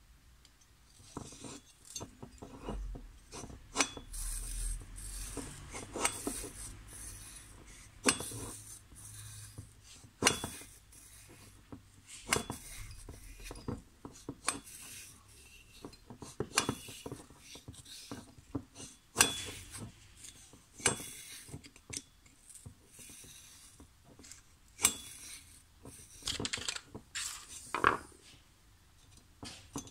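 Decompressor valve being lapped into its seat in a Malossi cylinder head with grinding paste, turned back and forth by a screwdriver: gritty scraping rubs and light metallic clicks, irregular, every second or so.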